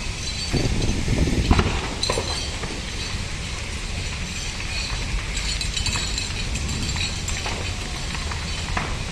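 Building fire burning with scattered sharp cracks and clinks of breaking glass over a steady low rumble, the loudest crack about one and a half seconds in.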